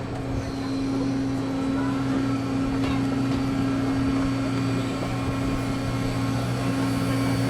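A large machine's motor starts up and runs as a steady low drone, holding an even pitch.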